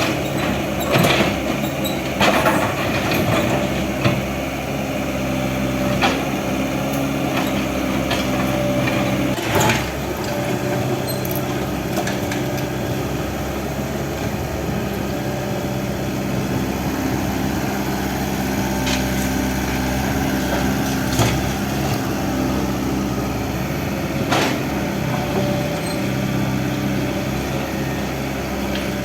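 Excavator's diesel engine running steadily while it works, with sharp cracks and knocks of building debris being broken. The knocks come thickly in the first ten seconds and twice more later on.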